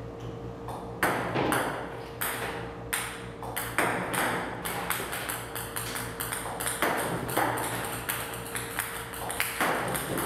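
Table tennis balls bouncing on a table tennis table: many sharp, irregular clicks, over a faint steady hum.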